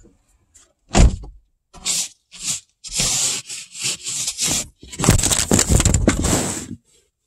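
Ice scraper scraping ice off a car's frozen windshield, in a series of rough strokes that grow longer and louder, after a single knock about a second in.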